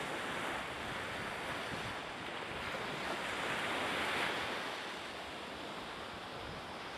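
Steady rush of sea waves washing in the harbour, with some wind, swelling a little about halfway through.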